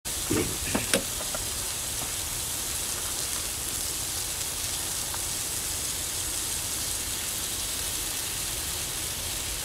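Diced food sizzling on a hot skottle griddle: a steady frying hiss, with a few spatula scrapes and taps on the pan in the first second.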